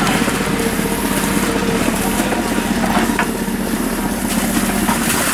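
Backhoe's diesel engine running steadily as its arm works the bucket beside the pit.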